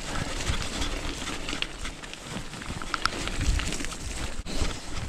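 B'Twin 520 mountain bike rolling along a dirt singletrack: continuous tyre noise on the trail with irregular rattles and knocks from the bike over bumps.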